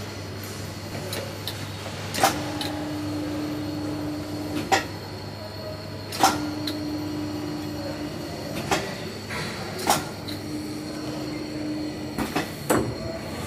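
Rotary indexing table of an 8-station index-type brazing machine cycling: a sharp clack, then a steady low drive tone for about two seconds, ending in another clack, three times over. A steady machine hum runs underneath.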